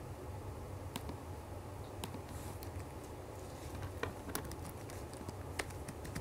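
Computer mouse and keyboard clicks: a single click about one second in and another about two seconds in, then a run of key taps from about four seconds in as a word is typed, over a steady low hum.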